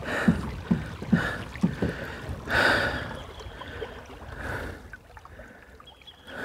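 Pedal fishing kayak under way: a short creak with each pedal stroke, about two a second, which stops about two seconds in. After that comes rushing water and wind noise, loudest a little after two and a half seconds.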